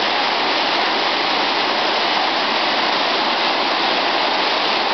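Floodwater rushing in a steady, unbroken flow.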